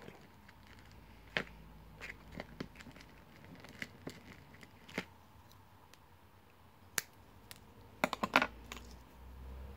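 Light, scattered clicks and taps of hands working small fishing tackle (rubber sleeve pieces, braid) on a glass counter, with a quick run of several clicks about eight seconds in.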